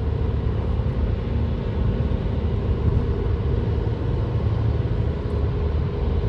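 Steady low drone of a car cruising at highway speed, heard from inside the cabin: engine and road noise with a faint steady hum.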